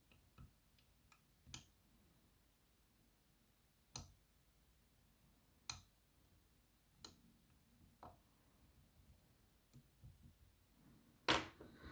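Sparse, irregular light clicks of a lock pick working the pin stack of a BKS 88 pin-tumbler cylinder held in a full set, with a louder knock near the end.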